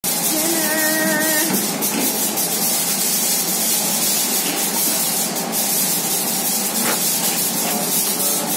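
Steady sizzling hiss of a whole lamb roasting on a spit over hot coals as it is basted with fat, with fine crackling through it.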